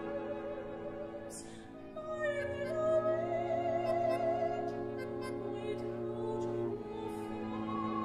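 Soprano singing over sustained chords from a small chamber ensemble of bowed strings. About two seconds in her voice glides up into a long, wavering held note with vibrato, which ends near seven seconds as the strings keep holding.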